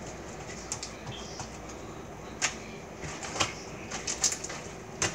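Slime being kneaded and pressed by hands on a countertop, giving off irregular sticky clicks and small pops, about half a dozen, with the busiest stretch in the second half.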